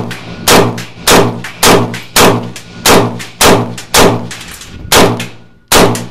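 AK-74 rifle firing 5.45×39mm rounds in steady semi-automatic fire: about ten sharp shots, roughly two a second, each with a short ringing echo, and a slightly longer pause before the last two.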